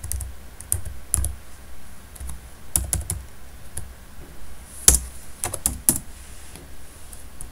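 Computer keyboard keys pressed in sparse, irregular keystrokes, with a few louder key strikes about five and six seconds in.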